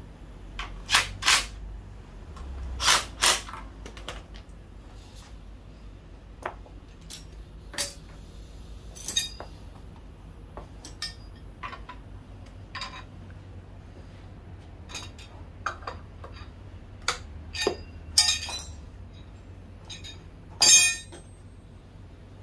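Metal tools and small engine parts clinking and clicking as they are handled, in scattered separate strikes; the loudest come as two pairs of knocks near the start and a single one near the end.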